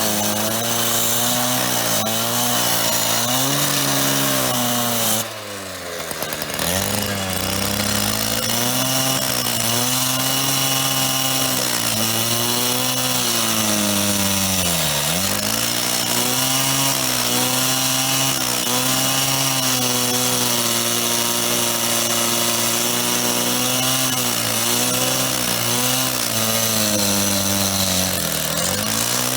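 Power saw cutting into a payphone's metal housing. The motor's pitch repeatedly sags as the cut loads it and then recovers, with a sharp drop and a brief fall in loudness about five seconds in.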